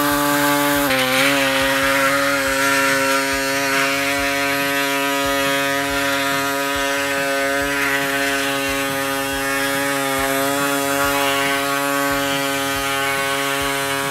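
Pneumatic saber saw (air-powered reciprocating saw) running steadily with an even buzzing pitch as it trims a plastic grille bracket. The pitch dips slightly about a second in, then holds.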